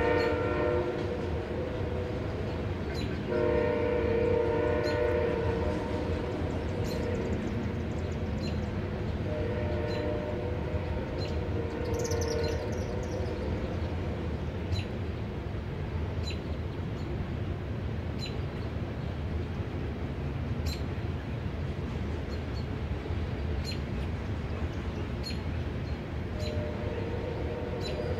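Train horn sounding a series of blasts over the steady rumble of a passing train: one ending just after the start, a long one about three seconds in, two weaker ones around ten and twelve seconds, and another starting near the end. Regular sharp clicks run under it.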